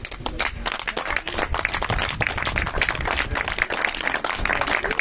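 Applause: several people clapping their hands, a dense, irregular patter of claps.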